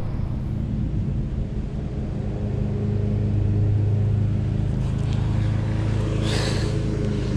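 Lawn-mowing engine running steadily, heard as a low even hum. A brief rustle about six seconds in.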